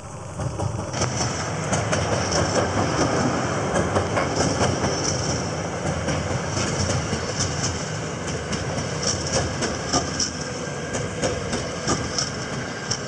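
JR Hokkaido 721 series and 731 series electric multiple-unit train running past, a steady rumble of wheels on rail with repeated clacks as the wheels cross rail joints. The noise rises sharply about a second in as the leading cars reach the microphone.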